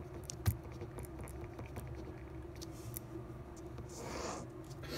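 Ballpoint pen writing on lined notebook paper: faint scratching strokes with a few light clicks, a sharper click about half a second in, and a longer scratch near the end as the words are underlined. A steady low hum sits underneath.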